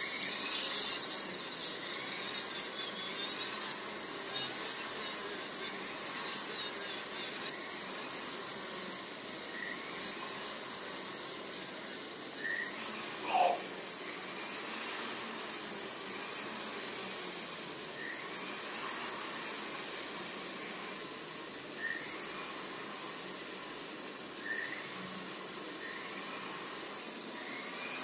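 Jeweller's rotary handpiece running a small sanding and polishing bit against a silver earring: a steady high hiss with short squeaks every few seconds, and one louder squeal about halfway through.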